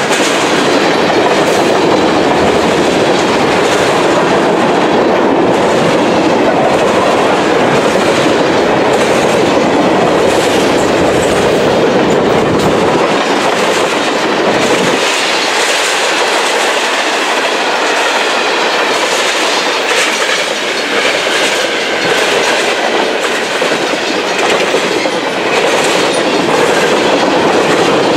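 Freight train tank cars rolling past close by: a loud, steady rumble and rattle of steel wheels on rail, with clickety-clack over the rail joints. The deep part of the rumble drops away about halfway through.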